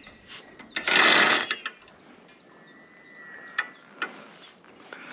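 A hooked chub splashing at the surface of shallow water about a second in, the loudest sound, followed by scattered clicks of a fishing reel being wound in.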